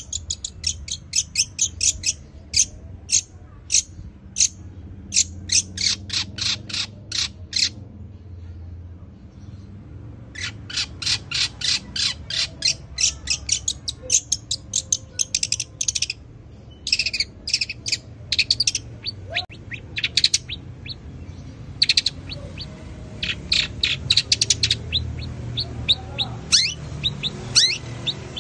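Caged long-tailed shrike singing in rapid runs of short, sharp chirps that mimic Eurasian tree sparrow calls, pausing for about two seconds a third of the way in.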